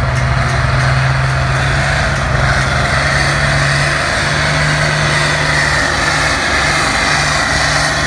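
Pulling tractor's diesel engine running flat out under load as it drags a weight-transfer sled. It is a steady, loud drone whose pitch steps up a little about four seconds in.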